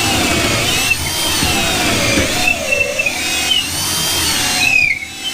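Power drill boring a pilot hole through a wooden porch beam, its motor pitch wavering up and down as the bit loads in the wood.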